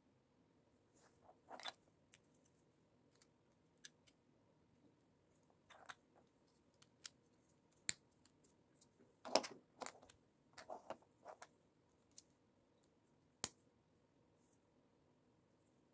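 LEGO bricks and plates being handled and pressed together, faint scattered plastic clicks and short rattles, with the loudest cluster about nine to ten seconds in and a sharp single snap near the end.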